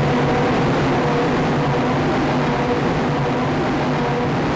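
Four Yamaha outboard motors running at high speed, a steady engine drone over the rush of water and wind.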